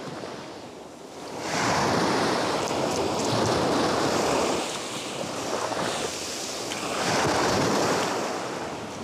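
Sea surf breaking and washing up the beach, in two swells: one rising about a second and a half in, and another near the end.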